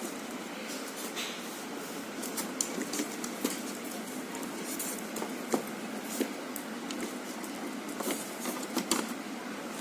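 Steady whir of a refrigerator's fan running, with scattered sharp clicks and taps of plastic parts being handled; the loudest clicks come about halfway through and again near the end.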